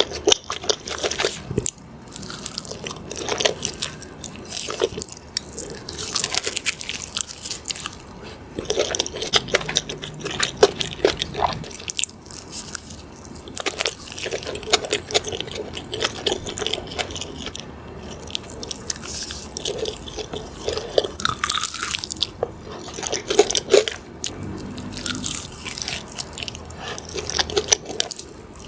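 Close-miked eating of chicken burgers: repeated crunchy bites and wet, smacking chewing.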